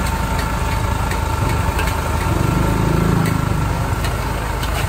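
Noodles being stir-fried in a wok: a metal spatula scrapes and clinks against the wok several times over a steady low mechanical roar.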